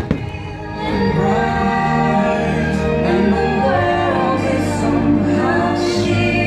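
Fireworks-show soundtrack: music with a choir singing, played loud over the park's sound system. It starts with a sharp click and a brief drop where the recording cuts.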